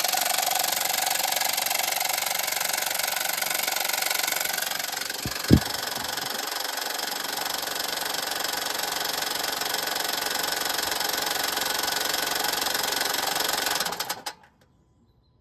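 A machine running steadily with a dense, rattly mechanical noise, cutting off abruptly near the end; a single sharp thump stands out about five and a half seconds in.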